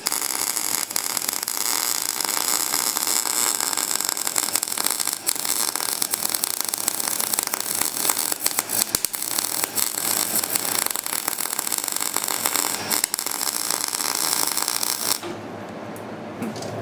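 MIG welder arc crackling and sputtering steadily as a bead is laid onto a peened-over shaft end, stopping suddenly about 15 seconds in.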